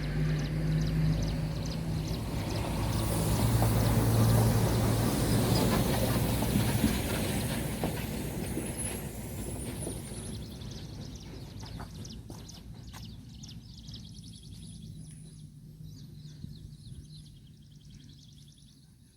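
A vehicle engine running with a steady low hum, loudest a few seconds in and then fading gradually until it is faint. Faint high chirps, like small birds, come through twice as it dies away.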